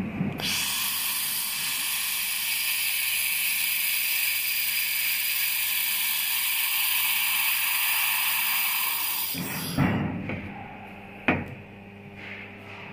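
Handheld laser welding gun hissing steadily as it welds the corner joint of square steel tubing, for about nine seconds. Then it cuts off, followed by a couple of knocks.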